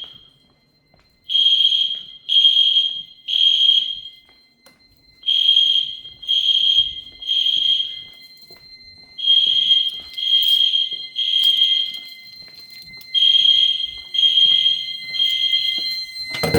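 Fire alarm sounding in a test: high-pitched beeps in groups of three, each about half a second long, with a pause of about a second and a half between groups, the temporal-three evacuation pattern.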